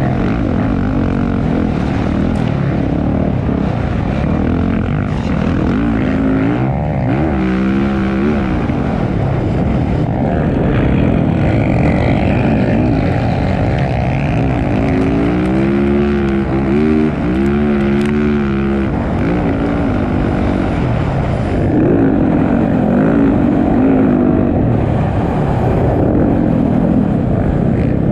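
Motocross bike engines racing at high revs, the pitch repeatedly sweeping up and down as the throttle is worked and gears change, with clear rising and falling revs about a quarter of the way in, around the middle and again near the end.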